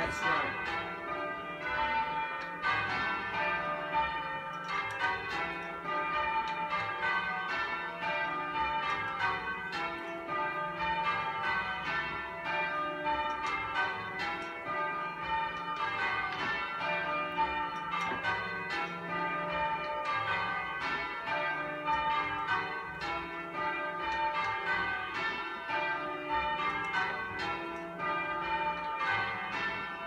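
Ring of church bells being rung in changes by ringers pulling the ropes below, heard from the ringing chamber. It is a steady, unbroken succession of overlapping bell strokes.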